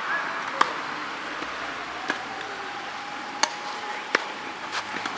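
Tennis rally: about five sharp pops, a second or so apart, of racket strings striking the ball and the ball bouncing on a sand-filled artificial grass court.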